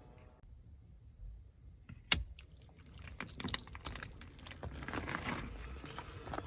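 Something cracking and crunching as it is crushed under a car tyre: one sharp crack about two seconds in, then a run of small crackles.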